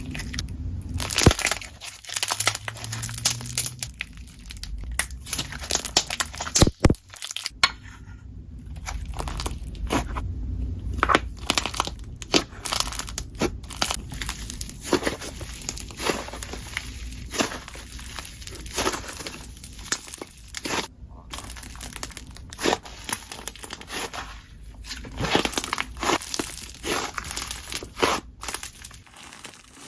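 Slime being squished and pressed by hand, giving a dense, irregular run of small crackles and pops.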